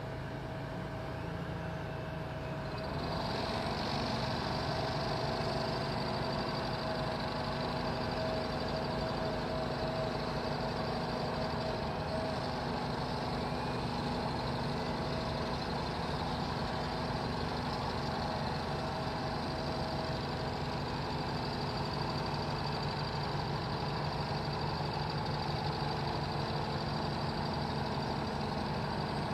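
Engine of a construction machine running steadily; about three seconds in it gets a little louder and a high whine joins it.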